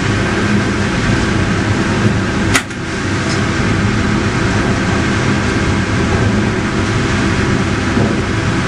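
Steady din of sawmill machinery running around a log carriage, with one sharp click about two and a half seconds in.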